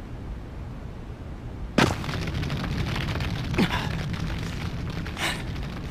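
Anime battle sound effects: a steady low rumble broken by three sharp, explosive cracks, about two seconds in, a couple of seconds later and near the end, the second one trailing off in a falling tone.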